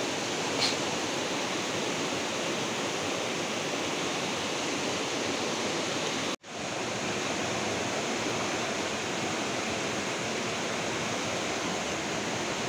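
Fast-flowing river rushing steadily over rocks, a constant hiss of turbulent water. The sound cuts out for an instant about six seconds in.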